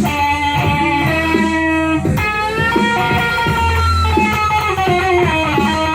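Blues music with electric guitar: bending lead notes over a plucked, strummed rhythm.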